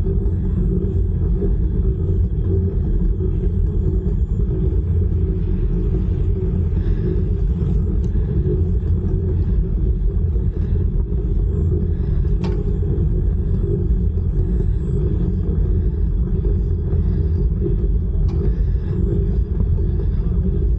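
Wind rumbling over the microphone of a handheld 360 camera carried on a moving bicycle: a loud, steady, fluttering low rumble with a steady hum above it. A single sharp click a little past halfway.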